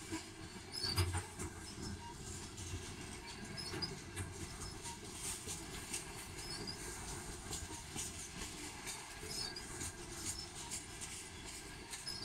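Canadian National freight train of covered grain hopper cars rolling past close by: a steady rumble of steel wheels on rail with irregular clicks and knocks as the wheels cross rail joints, the heaviest knocks about a second in.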